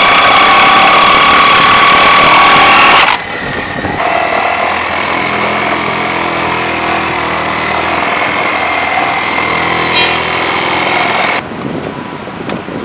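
Cordless drill running hard, driving screws into new pressure-treated deck boards: a loud, steady whir with a high whine for about three seconds. It is followed by a second, somewhat quieter steady machine sound lasting several seconds, which drops away shortly before the end.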